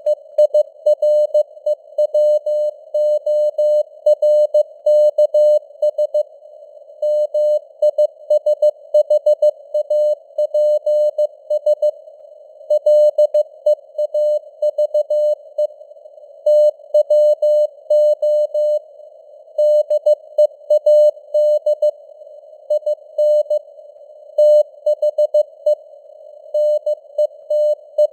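Morse code (CW) at 15 words per minute: a single mid-pitched beeping tone keyed on and off in dots and dashes, with short pauses between words. Underneath runs a narrow band of simulated radio static around the tone.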